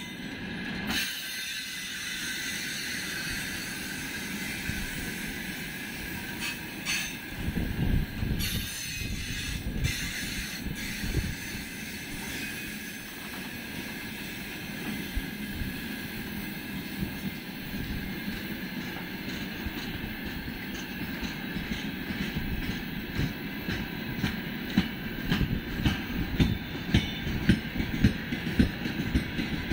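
Freight train of open gondola wagons rolling past: a continuous rumble of steel wheels on the rails with a high squeal held over it. A few heavier thumps come about a third of the way in, and a quick run of sharp wheel clacks builds through the last third.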